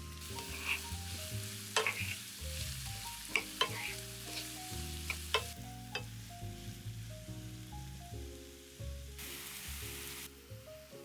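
Food sizzling in hot oil in a frying pan, with a utensil clicking against the pan about five times as it is stirred; the sizzle fades about halfway through and a brief hiss returns near the end. Soft background music plays underneath.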